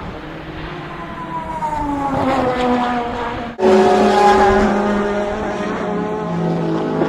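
Race car engines at the end of a straight: one car's engine note falls steadily in pitch as it slows for the corner. About three and a half seconds in, the sound cuts abruptly to a louder engine holding a steadier note.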